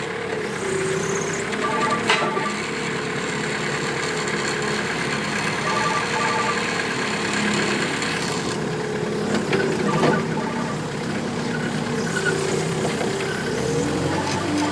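Moffett piggyback forklift engine running as the machine backs away with its forks raising, its pitch shifting up and down. Sharp clunks come about two seconds in and again near ten seconds.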